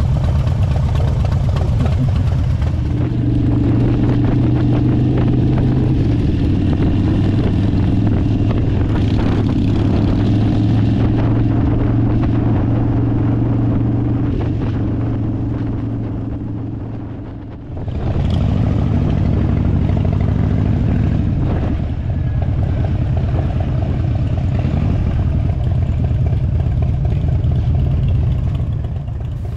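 Harley-Davidson V-twin motorcycle engine running under way, a steady engine note. It fades down and cuts back in about eighteen seconds in.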